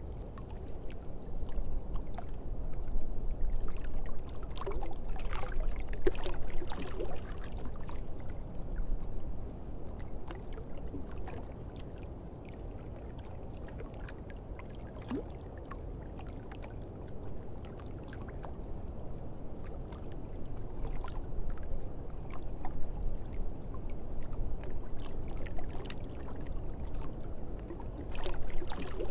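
Continuous rushing, water-like noise with scattered crackles and clicks, louder for the first several seconds, quieter in the middle and swelling again toward the end.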